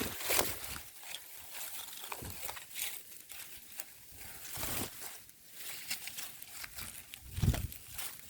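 Strong, gusty winter wind with irregular rustling crackles, and a low buffet of wind on the microphone near the end.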